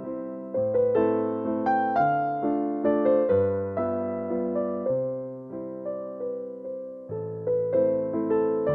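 Background piano music: a gentle melody of struck notes, each fading away, over low bass notes.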